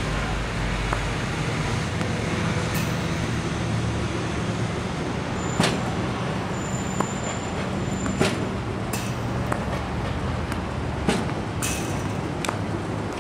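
Tennis ball machine feeding balls with a sharp pop about every three seconds, with fainter knocks of racket hits and ball bounces from across the court, over a steady low hum.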